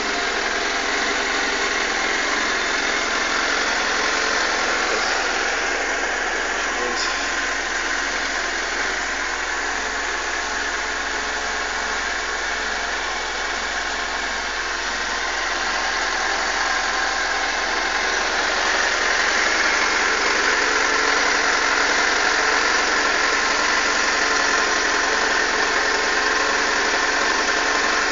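Suzuki GSX-R600 SRAD's inline-four engine idling roughly, running steadily and getting a little louder in the last third.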